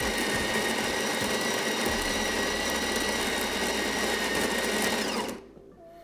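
Built-in conical burr grinder of a De'Longhi La Specialista Maestro espresso machine grinding coffee beans into the portafilter: a steady motor whir with a high whine that cuts off about five seconds in, when the set dose is ground.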